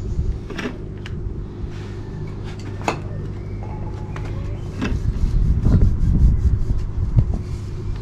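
A steady low mechanical hum, like a motor running, with a few small clicks early on; from about five seconds in, wind buffets the microphone with an uneven low rumble.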